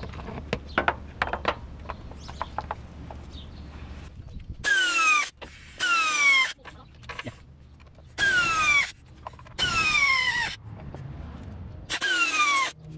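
Pneumatic wrench on an air hose running in five short bursts, the pitch falling during each one, as it drives in engine cover bolts. Before that, a few light clicks of parts and bolts being handled.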